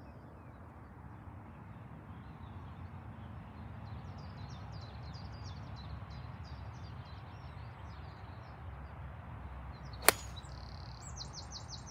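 A golf club strikes a ball off the tee: one sharp crack about ten seconds in. It sounds over a low steady background and faint bird chirps.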